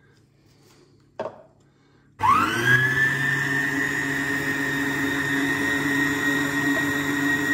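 A short click about a second in, then a Centek stand mixer switches on: its motor whine rises quickly and settles to a steady pitch as the dough hook kneads bread dough.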